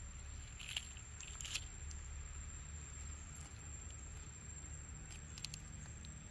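Quiet outdoor ambience: a steady low rumble and a thin, steady high-pitched whine, with a few faint crackles about a second in, again half a second later, and once more past five seconds.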